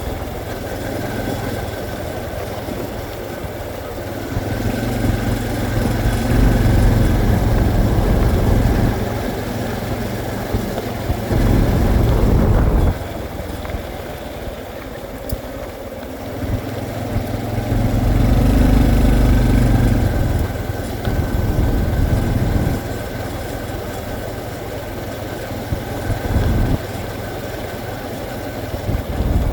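Honda CT125's single-cylinder engine running as the bike is ridden, its sound swelling and easing several times with the throttle.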